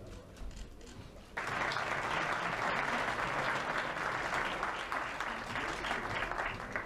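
Audience applauding, starting sharply about a second and a half in and dying away near the end.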